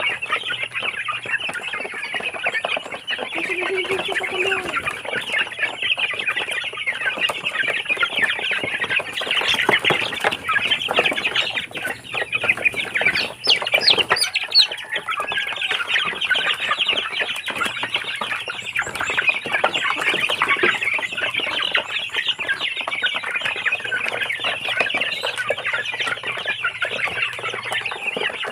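A flock of Barred Plymouth Rock chicks and hens feeding together: many chicks peeping continuously, with hens clucking now and then.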